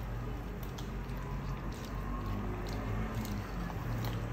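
Silicone spatula stirring thick beans and plantain porridge in a metal pot: soft squelching of the wet food with a few light scrapes. A steady low hum runs underneath.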